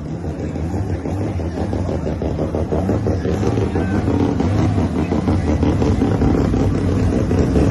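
Car engine running hard, getting steadily louder.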